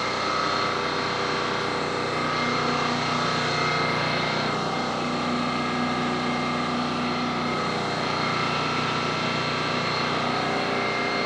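Air compressor running steadily for spray-priming, a constant motor hum with a hiss of air over it.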